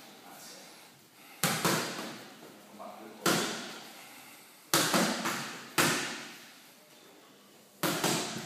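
Gloved strikes smacking into held training pads, about seven sharp hits in uneven spacing, some in quick pairs, each ringing on briefly in an echoing room.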